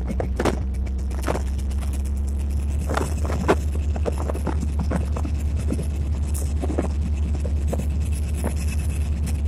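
Cab interior of a moving EMD SD24 diesel-electric locomotive: its 16-cylinder 567 diesel engine gives a steady low drone, with scattered knocks and rattles from running over rough track.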